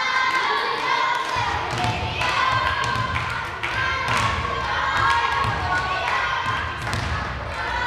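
Voices of players and spectators calling out during a volleyball rally, with several sharp thuds of the ball being hit and feet on the wooden court. A low rumble comes in about a second and a half in.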